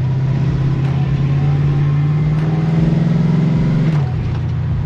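LS-swapped 1970 Chevrolet Nova's V8 pulling under steady acceleration, its note climbing slowly, then dropping sharply about four seconds in.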